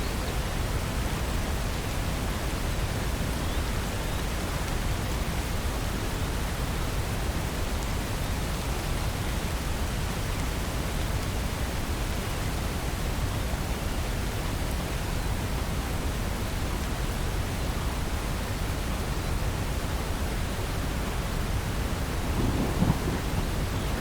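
Steady rain hiss, with a brief low rumble of thunder near the end.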